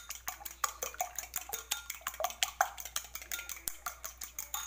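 An egg being beaten with a metal utensil in a ceramic bowl: quick, even clinks against the bowl, about six a second, each with a short ring.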